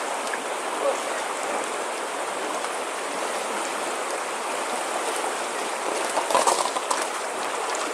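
Fast-flowing river water rushing steadily, with a spell of louder splashing about six seconds in.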